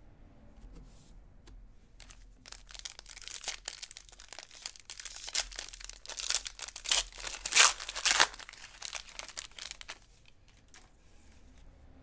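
Foil wrapper of a baseball card pack being torn open and crinkled by hand. It is a dense crackle that starts about two seconds in, gets loudest around six to eight seconds, and stops near ten seconds.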